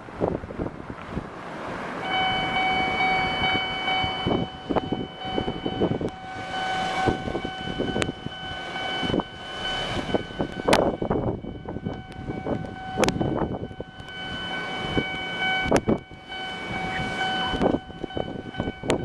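An electronic level-crossing alarm starts about two seconds in and keeps ringing a steady, distinctive tone with overtones. Irregular clunks and rumble sound over it, which fit a train passing.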